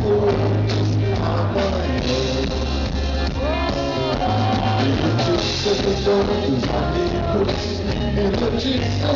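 Live band playing a rock-tinged MPB arrangement: steady electric bass and drums with a lead melody line bending in pitch over it, played between sung verses.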